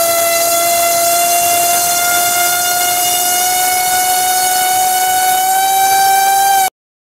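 T-Motor F60 2450kv brushless motor spinning a 6x4.5 propeller at high throttle on a thrust stand: a loud, steady whine that rises slowly in pitch as the throttle is turned up towards about 30 amps, then cuts to silence near the end.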